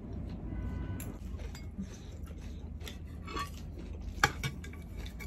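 Metal spoons clinking against ceramic bowls in scattered light taps, the loudest about four seconds in, as noodles are scooped from a large serving bowl.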